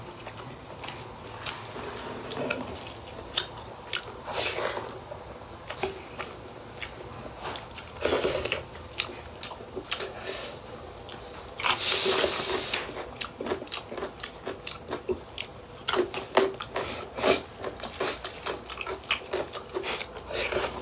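Close-up chewing and biting of pork and rice eaten by hand, a steady run of wet smacks and crunchy clicks. Two louder rushing bursts stand out, about eight and twelve seconds in.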